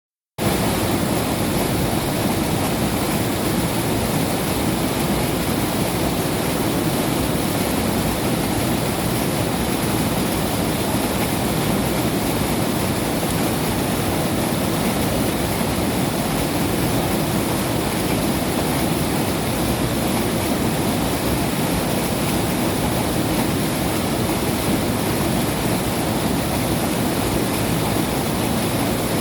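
River water rushing, a steady full-bodied rush that starts abruptly half a second in and holds without change.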